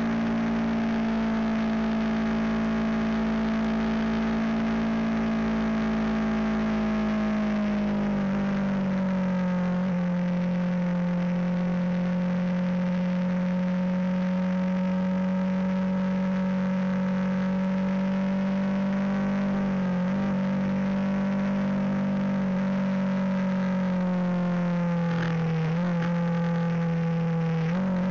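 Motorcycle engine running at a steady cruise, heard from a camera mounted on the bike. Its pitch drops about eight seconds in, dips briefly twice later on, and rises near the end.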